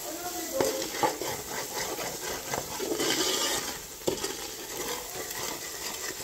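Metal spoon stirring and scraping thick curry masala around a stainless steel pot, with irregular clicks of the spoon against the pot, over a light sizzle of the masala frying in oil.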